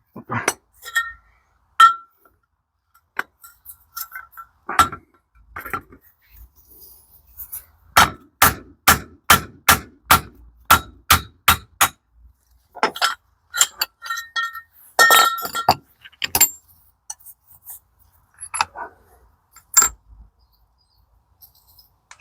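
Metal-on-metal clinks and sharp ringing taps from steel gearbox parts being handled and knocked on the shaft, including a run of about two strikes a second around the middle, with scattered clinks before and after.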